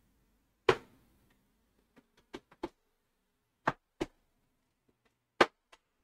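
Handling noise from a laptop power adapter and its plug being picked up and plugged in: a handful of separate sharp clicks and knocks, the loudest about two thirds of a second in.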